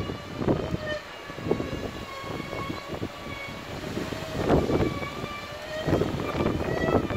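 A traditional Bermuda kite's hummer buzzing in the wind: a steady hum of several held tones, loud. Gusts of wind buffet the microphone now and then, strongest about half a second in and again around four and a half seconds and near the end.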